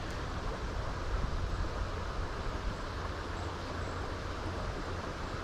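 Wind buffeting the microphone with a steady low rumble, over the even rush of flowing river water.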